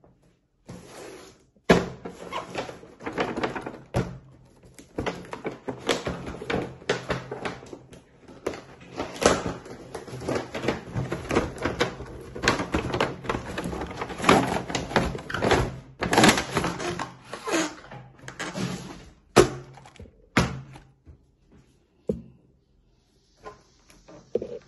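Cardboard toy box being opened by hand: a dense run of crackling, tearing and knocking as flaps and tape are pulled apart and the packaging is handled, thinning out to a few scattered knocks about twenty seconds in.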